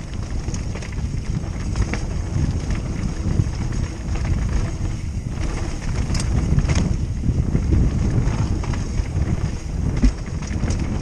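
Wind buffeting the microphone of a helmet-mounted camera during a fast mountain bike descent, a steady low rumble, with scattered clicks and rattles from the bike on the rough dirt trail.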